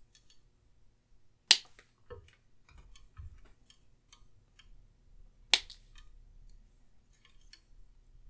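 Small wire cutters snipping the tinned ends off stranded wires: two sharp snips about four seconds apart, with faint clicks from handling the wire and tool in between.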